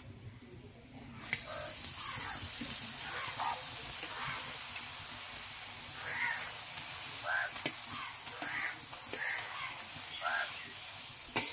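A tal (palm-fruit) paratha sizzling in oil on a hot iron tawa; the sizzle starts suddenly about a second in and then holds steady. Short bird calls repeat over it.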